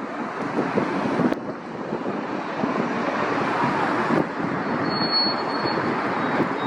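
Jet airliner engine noise, a steady rush mixed with wind buffeting the microphone; a thin high whine comes in briefly about five seconds in.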